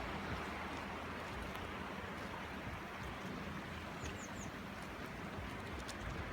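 River water rushing steadily, with a small bird giving three quick high chirps about four seconds in.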